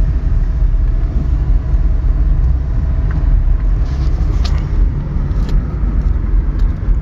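Wind buffeting and road noise inside a moving 2001 Honda Civic driving with its Lambo doors swung up open, a steady loud low rumble. A few faint clicks or rattles come through around the middle and near the end.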